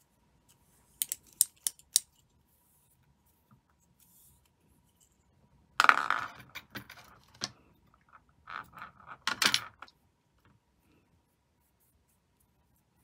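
Small hard clicks and clinks as a tatting shuttle and thread are handled while tatting lace. There are four sharp clicks about a second in, a louder clatter near the middle that trails off, and another run of clicks later on.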